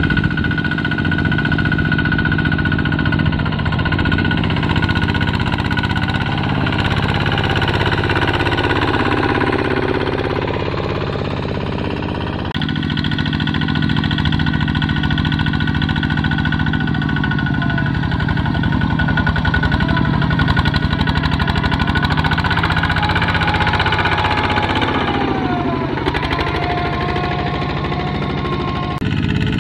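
Single-cylinder diesel engine of a two-wheel walking tractor running while it pulls a loaded trailer, with a fast, even knocking beat. Its note sags and picks up again a few times.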